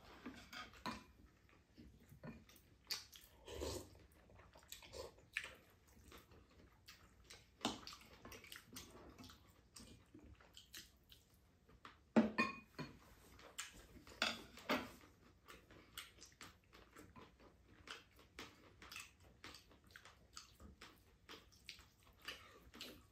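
Quiet mealtime eating: chewing, with scattered light clicks and taps of spoons and chopsticks against ceramic bowls and a few louder brief clatters.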